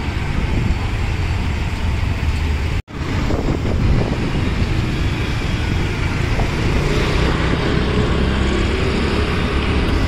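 Steady wind rush on the microphone and road traffic noise from a moving two-wheeler riding through city traffic. The sound cuts out for an instant about three seconds in.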